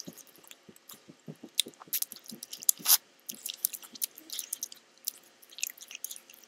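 Close-up mouth noises of someone chewing gum in an exaggerated way: wet, irregular smacks and clicks, with a louder smack about halfway through.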